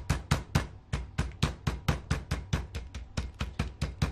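Flat face of a metal meat mallet pounding a boneless chicken breast sealed in a plastic zip bag on a cutting board, flattening it. The blows are rapid and even, about six a second.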